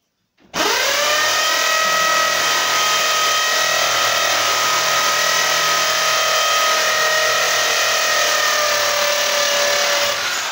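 Electric drill motor running, spinning up suddenly about half a second in, holding a steady high speed, then winding down with falling pitch near the end as the trigger is released.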